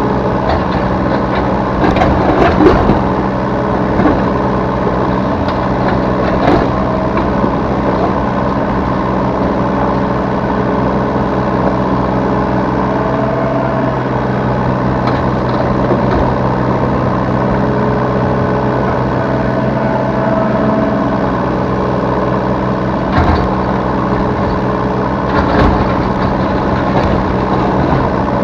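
Yanmar B3 Sigma 3-ton mini excavator's diesel engine running steadily under work, heard from the operator's cab. Occasional knocks and clatter, loudest about two to three seconds in and again twice near the end, as the bucket digs and handles soil.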